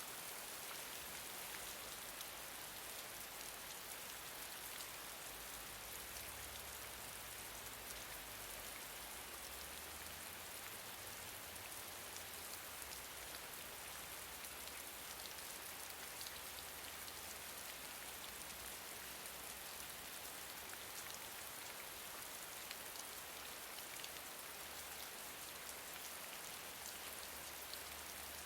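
Gentle steady rain falling, an even hiss with scattered individual drops ticking on a surface.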